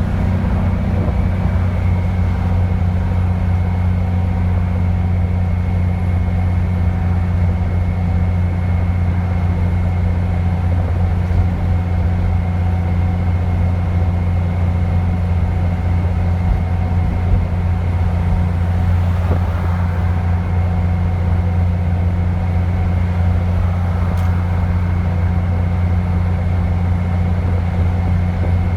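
Dennis Trident 2 double-decker bus engine running at a steady, even pace, a constant low drone with a thin, steady high turbocharger whistle above it.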